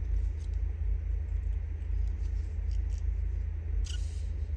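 Steady low background rumble, with faint clicks and rustles of paper strips being handled on a table and a brief rustle about four seconds in.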